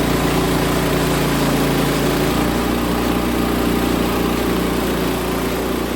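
Sawmill engine running steadily at a constant pitch, which shifts slightly about halfway through and then begins to drop off near the end.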